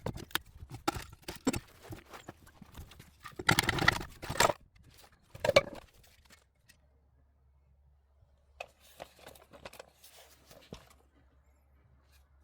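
Metal knocking and clanking with a loud scrape about four seconds in, as the rusted-together pipes of an old exhaust system are bent, broken and pulled apart. The knocks fade to a few scattered ones over a faint low hum.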